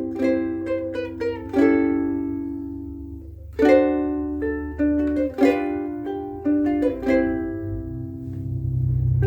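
Kala Pan-Pacific koa soprano ukulele played in short plucked and strummed phrases, loose noodling rather than a set tune. Several chords are left to ring out and fade, with a pause after about two seconds before the next phrase.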